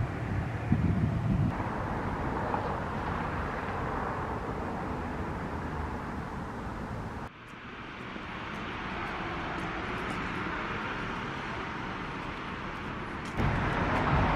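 Steady vehicle and road noise, changing abruptly about seven seconds in and again near the end.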